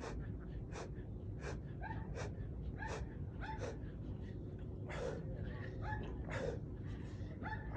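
A man breathing hard during push-ups: quick, forceful mouth breaths in and out, about one a second, some with a short voiced catch.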